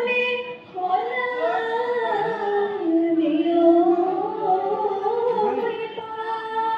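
Women singing a Bihu folk song with no drums, a slow drawn-out melody of long held notes that glide between pitches.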